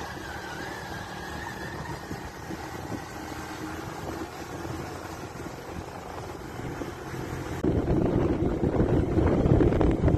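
A vehicle's engine running steadily while travelling along a road. About three-quarters of the way through, wind buffeting on the microphone suddenly gets much louder and rougher.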